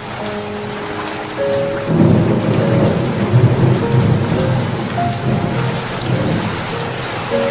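Steady rain falling, with a low rumble of thunder that rolls in about two seconds in, peaks, and dies away over the next few seconds.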